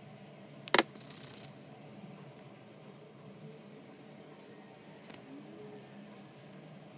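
A single sharp click from the plastic oil bottle about a second in, followed by a brief hiss of hands rubbing together. Then faint rubbing and scratching as fingers work the oil through damp hair.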